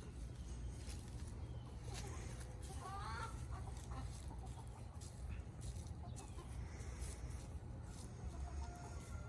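Buff Brahma rooster giving one short call about three seconds in, over a steady low rumble.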